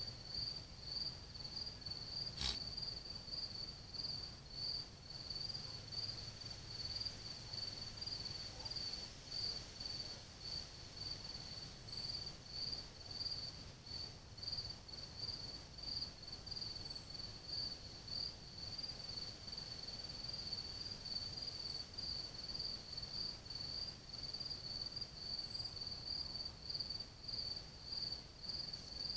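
A cricket chirping on and on in a high, even rhythm, a little under two chirps a second. A single sharp click sounds about two and a half seconds in.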